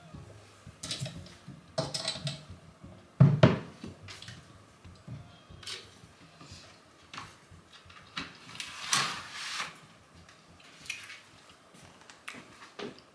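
Kitchen items being handled: scattered knocks and clatters of dishes, cupboards or drawers, with one sharp knock about three seconds in and a longer rustle around nine seconds in.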